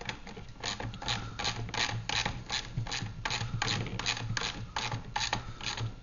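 Socket ratchet wrench clicking in short runs, about two or three strokes a second, as it tightens a nut and bolt.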